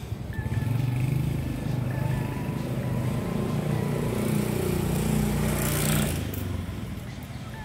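A motor vehicle engine running close by, loud for about five and a half seconds, with rising hiss near its end before it drops away.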